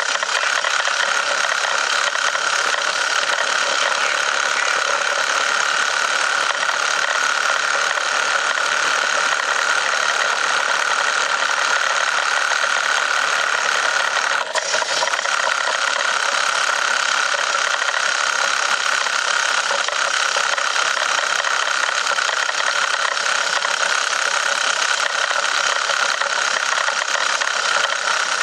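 1917 Model T Ford's four-cylinder engine running steadily under load, pulling up a steep grade in high gear, heard from the driver's seat. There is a momentary dip in the sound about halfway through.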